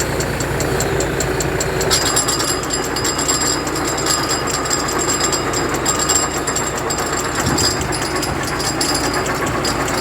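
Tractor-powered flour mill (atta chakki) running, the tractor's diesel engine chugging steadily. A higher grinding hiss joins about two seconds in and carries on.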